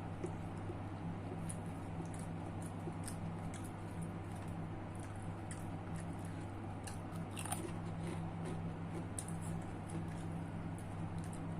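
A person chewing food close to the microphone: scattered faint wet clicks and smacks of the mouth over a steady low hum.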